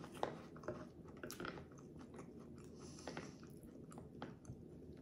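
A person chewing and biting food close to the microphone, with soft, irregular crunches and clicks.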